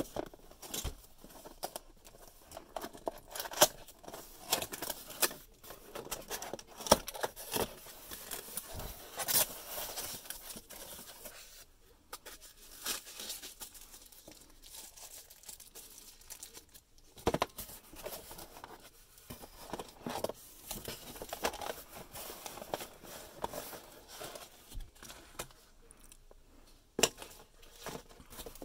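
A cardboard box being opened and unpacked by hand: tearing, cardboard flaps and foam packing rustling and scraping, with irregular sharp taps and crinkles.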